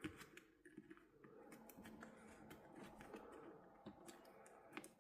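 Near silence with faint scattered clicks and light rustling of small handling: a hobby wire being worked, its metal core pulled out of the plastic insulation.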